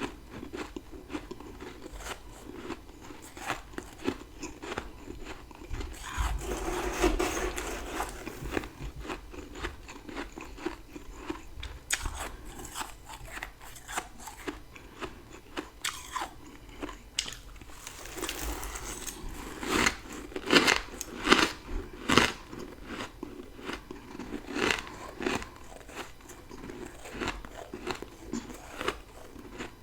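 Close-up crunching of dry freezer frost being bitten and chewed in big mouthfuls, a dense run of sharp crisp crunches with the loudest bites a little past the middle.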